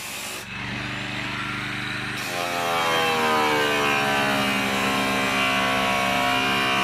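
Electric angle grinder with a cutting disc slicing through corrugated steel roofing sheet: a steady, loud motor whine whose pitch sags and wanders as the disc bites into the metal.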